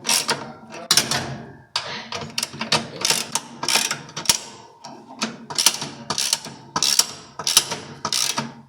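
Socket ratchet wrench worked back and forth in quick strokes, rasping and clicking about two to three times a second as it drives in the screws that hold the washing machine's transmission, with a short pause a little past halfway.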